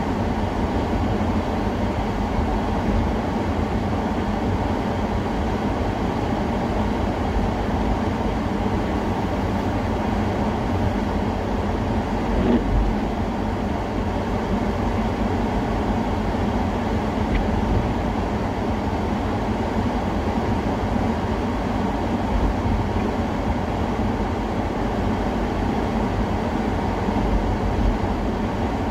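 Steady low rumble of a moving vehicle, with a single knock about twelve and a half seconds in.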